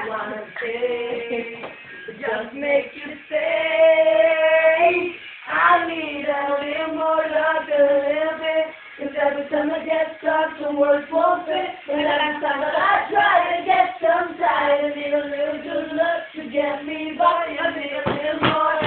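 Singing, in slow phrases with long held notes and short breaks between them.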